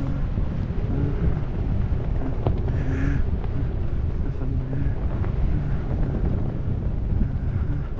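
Wind rushing over the camera's microphone during flight under an open BASE parachute: a steady low rumble.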